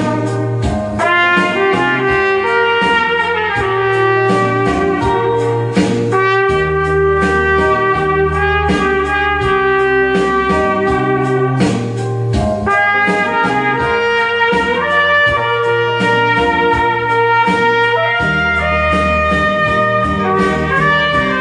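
Trumpet playing a slow melody with long held notes, over an accompaniment with a bass line that changes with the chords.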